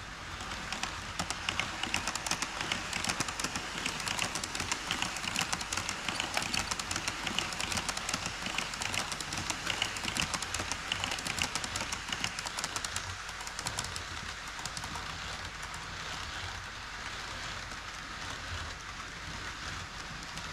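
HO-scale model freight train running over a model truss bridge on KATO Unitrack, its wheels making a rapid, dense clicking patter over the rail joints. The clicking is loudest in the first half and eases off from about two-thirds in.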